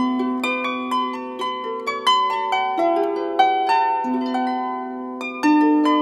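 Background music: a gentle plucked-string melody, several notes a second ringing over held low notes.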